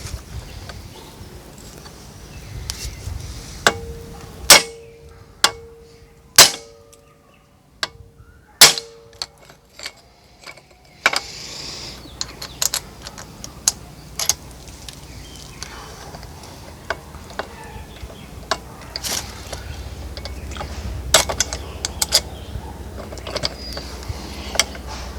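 Hammer strikes on steel engine parts, likely driving rod bolts in a Honda B18B1 connecting rod: five hard blows in the first half, several leaving a brief metallic ring, then lighter taps and clinks of tools and parts.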